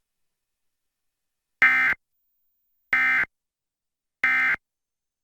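Three short bursts of Emergency Alert System digital data tones, the SAME end-of-message code that closes an alert, each about a third of a second long and about 1.3 seconds apart.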